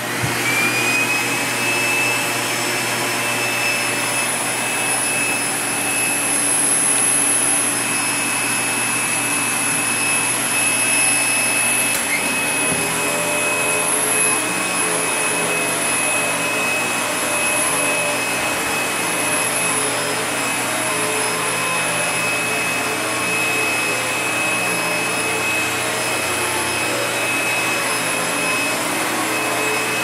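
Hoover Legacy/Duros canister vacuum cleaner's motor winding up to speed at switch-on, then running steadily with a high whine. From about twelve seconds in, the floor nozzle is pushed over carpet and the sound gets rougher and more changeable.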